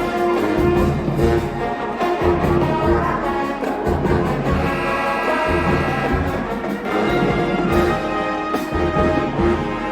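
Background music with a steady beat and brass.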